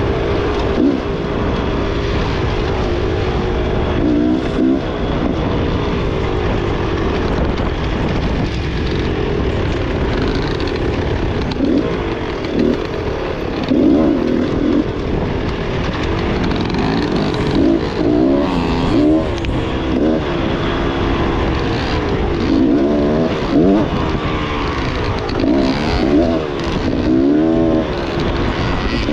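Beta enduro dirt bike engine under way, its pitch climbing and dropping again and again as the throttle is worked, over a steady low rumble.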